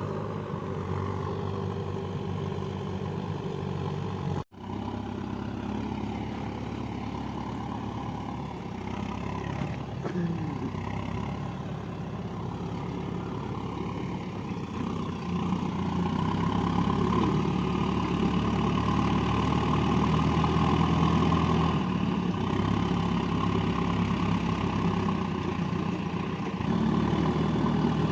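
JCB 3DX backhoe loader's diesel engine running steadily, coming under more load and getting louder from about halfway through, with a brief break about four seconds in.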